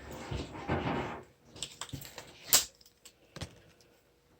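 A few light clicks and taps of tools and plumbing fittings being handled, with a soft rustle in the first second and the sharpest click about two and a half seconds in.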